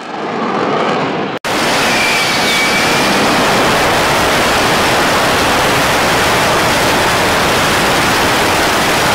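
AV-8B Harrier II jump jet hovering, its single Pegasus turbofan blasting thrust downward through the swivelled nozzles: a loud, steady jet roar with a faint whistle about two seconds in. Before that, a quieter jet roar cuts out briefly about a second and a half in.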